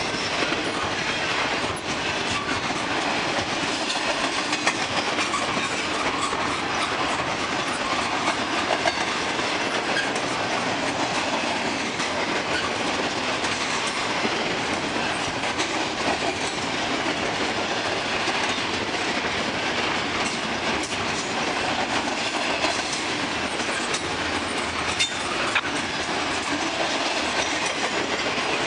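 Double-stack intermodal well cars of a freight train rolling steadily past, a continuous rush of steel wheels on rail with scattered wheel clicks.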